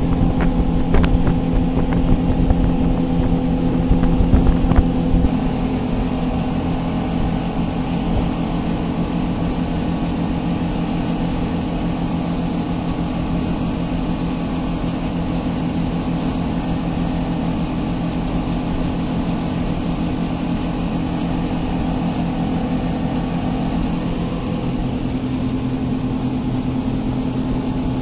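Motorboat engine running steadily under way, a constant drone with water and hull noise, heard from inside the covered cabin. A few light knocks come in the first five seconds.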